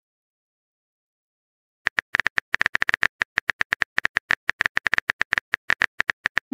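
Phone keyboard typing sound effect as a text message is typed out: rapid, even key-tap clicks, about eight or nine a second, starting about two seconds in after silence.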